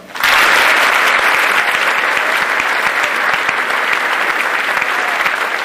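Audience applause, many hands clapping. It breaks out sharply right after the speaker's name is announced and holds steady and loud.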